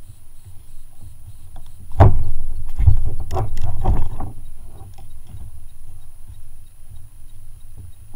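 A burst of knocks and clatter against the kayak from about two to four seconds in, as a fish is handled in a landing net. A low rumble runs underneath.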